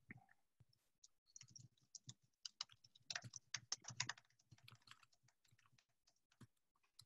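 Faint typing on a computer keyboard: a quick run of key clicks that thins out after about four and a half seconds.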